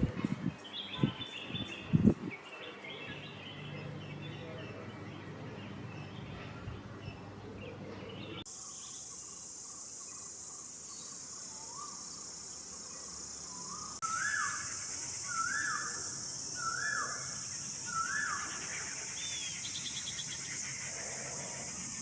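Wild birds chirping, with a few low thumps in the first two seconds. Partway through the sound switches abruptly to a steady, high insect drone, over which a bird repeats a short rising call four times.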